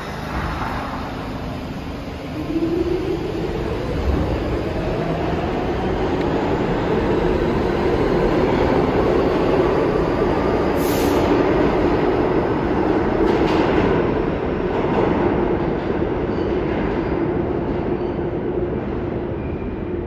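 New York City subway train running through a station, with steady rail and wheel rumble and a motor whine that rises in pitch from about two seconds in. The sound grows louder at that point and eases slowly near the end.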